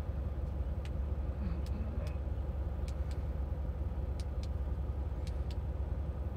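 Steady low hum of an idling engine, with a few faint, scattered clicks on top.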